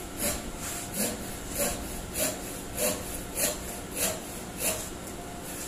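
Hand saw cutting a wooden slat, in even back-and-forth strokes a little under two a second.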